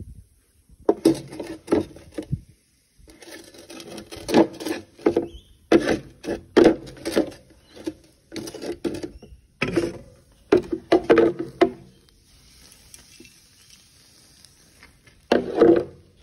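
Aluminium beer can rolled back and forth over liquid nitrogen in a plastic tray: repeated short bursts of rolling and scraping, with a quieter stretch about three-quarters of the way in.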